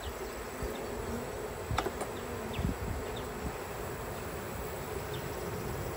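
Honey bees buzzing steadily from an open hive box, with a single light click about two seconds in.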